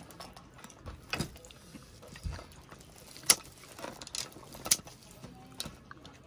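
Handling noises: a few sharp clicks and clacks, the loudest about three and a half seconds in and another a second or so later, over soft rustling.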